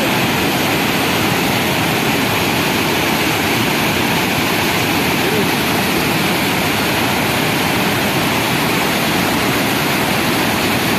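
Steady, loud roar of the broad, flood-swollen Hogenakkal Falls on the Kaveri River pouring over a rocky ledge in muddy torrents.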